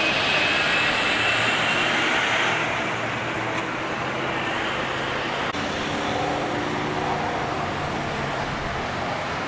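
Freeway traffic noise: a steady roar of passing vehicles, louder for the first two and a half seconds as a tractor-trailer goes by close behind, then easing slightly.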